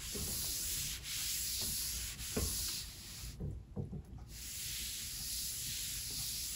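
A cloth rag wiping up a spill on a wooden tabletop: a steady rubbing hiss in strokes. It stops for about a second past the middle, where there are a few light knocks.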